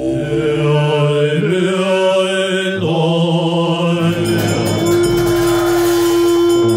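Tibetan Buddhist monks chanting in low voices. About four seconds in, hand cymbals start clashing and a long steady note is held beneath them.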